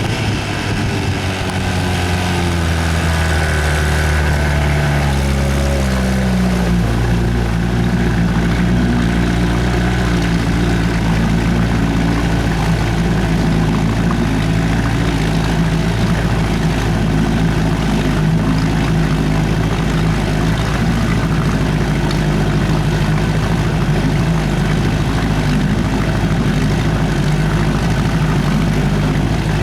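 1970 Evinrude 25 hp Sportster two-stroke twin outboard motor running. Its pitch drops over the first several seconds as the engine slows, then it runs at a steady speed.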